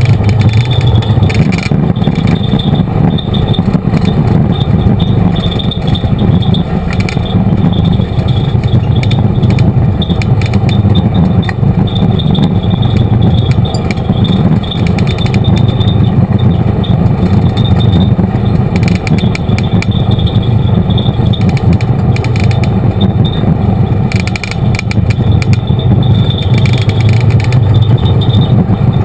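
Side-by-side UTV engine running steadily under way, with the body and roll cage rattling and clattering over the bumps of a dirt trail.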